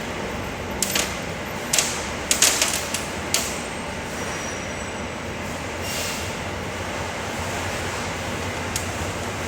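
A handful of sharp clicks and knocks, bunched in the first few seconds with one more near the end, over a steady background hiss: parts and tools being handled during assembly.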